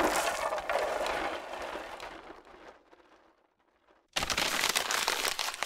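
A hissing noise fades away over about two and a half seconds into silence. About four seconds in, paper crinkling and rustling starts suddenly as a paper label is handled.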